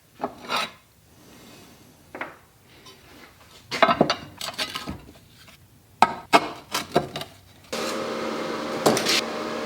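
Steel plate and flat-bar brackets clanking and knocking as they are handled and fitted against the belt sander, in separate clatters. Near the end a steady hum starts.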